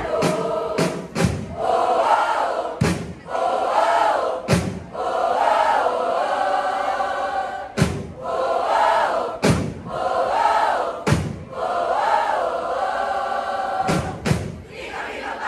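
Bench yell squad singing a cheer in unison, many voices together in rising and falling phrases. Sharp loud percussion hits come in a quick run at the start, then single hits between the phrases every couple of seconds.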